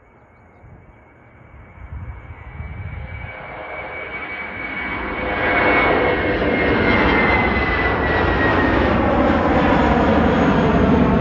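Twin jet engines of an Airbus A320-family airliner at takeoff thrust, growing steadily louder as it lifts off and climbs toward the microphone. A high whine falls slightly in pitch as it draws near, and the sound then stays loud and steady.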